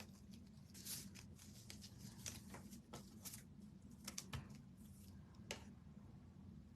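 Faint, scattered clicks and rustles of craft materials being handled on a work table, over near silence.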